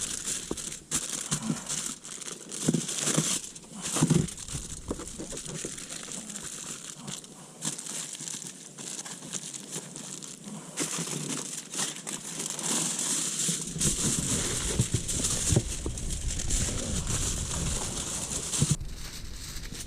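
Aluminium foil being folded and crumpled by hand while wrapping a foil-pack dinner, with irregular crinkling and sharp crackles.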